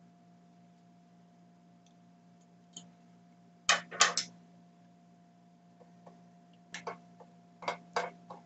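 Short sharp clicks and taps of hard plastic and a small screwdriver as a screw terminal block is fitted into a cordless screwdriver's plastic battery housing: a quick cluster of clicks about four seconds in, then scattered clicks near the end, over a faint steady hum.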